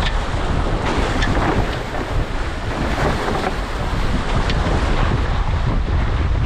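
Heavy wind buffeting the microphone over rushing, splashing water as a Tornado catamaran's hulls bounce through steep chop, with a few short splashes standing out.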